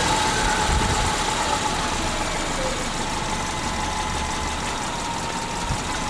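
Subaru Outback's 2.5-litre flat-four engine idling steadily just after being started, its level easing a little in the first second or two.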